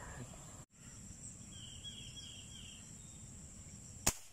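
Insects buzzing steadily, with a short chirping trill about two seconds in. Near the end, a single sharp shot from a Manlapat fishing air gun fired into the water at a fish.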